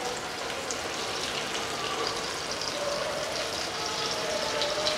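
Paneer balls deep-frying in a pan of hot oil: a steady sizzle with fine crackling.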